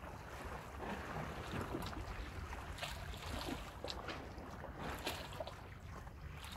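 Wind buffeting the microphone over the sound of sea water, with short splashing hisses every second or so.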